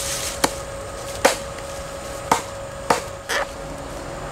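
Sharp chopping blows into a bamboo tube, about five irregularly spaced strokes roughly a second apart, the fourth and fifth close together.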